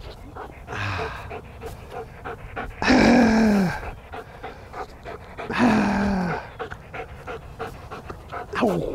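A large working dog, a black German Shepherd, panting hard as it holds a ball toy in its mouth. Every few seconds there is a louder short vocal sound that falls in pitch.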